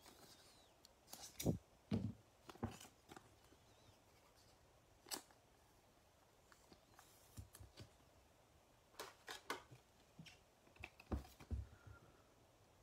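Scissors snipping through a thin clear plastic sleeve, a few sharp snips in the first few seconds, followed by scattered faint clicks and taps as a trading card is handled.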